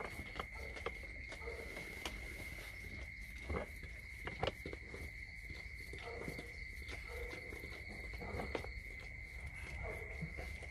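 Rottweiler mother licking her newborn puppy: soft wet licking clicks at irregular intervals, with a few faint short squeaks, over a steady high-pitched whine.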